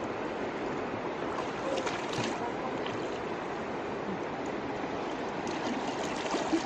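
River water sloshing and swirling around people wading waist-deep, with a few small splashes.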